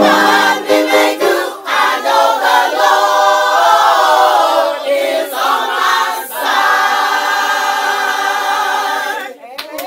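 Choir singing a cappella, ending on a long held chord that cuts off shortly before the end.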